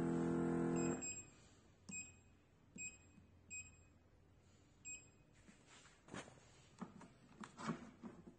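The beauty machine's steady multi-tone hum stops abruptly with a beep about a second in. Four more short electronic beeps follow as its touchscreen buttons are pressed, then clicks and knocks of the metal handpieces being handled.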